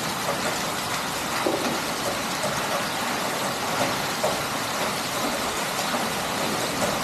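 Heavy, stormy rain falling as a steady, even hiss, with no let-up.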